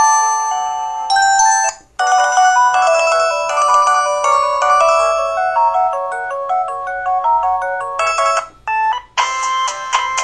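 LG-SD350 mobile phone playing its built-in polyphonic ringtone melodies, one after another. One tune ends about two seconds in and another plays until near the end, when a short tone sounds and a new melody starts.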